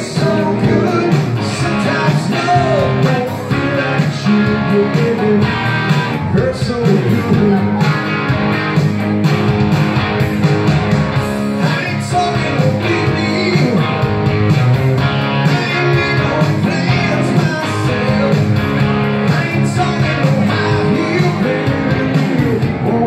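Live rock music from an electric guitar and an acoustic-electric guitar, strummed and picked together, with singing.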